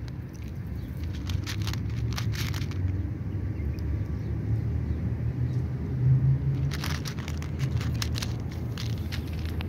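Cat crunching dry kibble: quick, crisp crunches in two bouts, about a second in and again around seven seconds in. A steady low rumble runs underneath.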